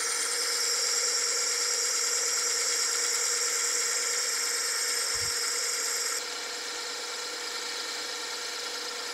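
Metal lathe boring out a bearing-bronze bushing with a boring bar: a steady high-pitched cutting whine over the lathe's running hum. About six seconds in the whine stops as the cut ends, and the lathe runs on.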